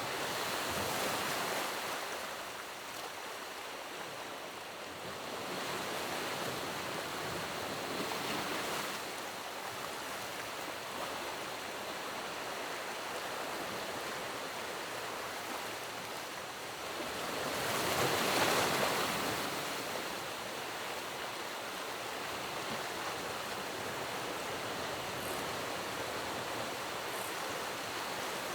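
Rushing water: a steady noisy rush that swells louder a few times, most strongly about two-thirds of the way through.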